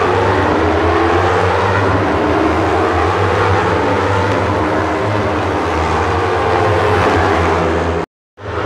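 A pack of racing motorcycles running together, many engines sounding at once in a loud, steady mass of overlapping tones. The sound cuts off suddenly near the end.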